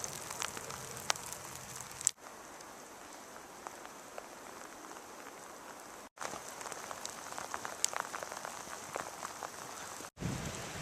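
Steady rain falling, with scattered sharp drop ticks. The sound cuts out briefly three times, and the stretch between the first two gaps is quieter.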